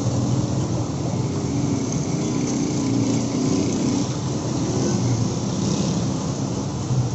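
Steady low engine rumble of road traffic with an even hiss, with no distinct knocks or splashes standing out.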